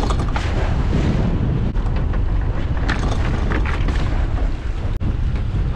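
Heavy wind rumble on the microphone over the steady noise of a small boat's outboard motor running through choppy water, with a few light knocks.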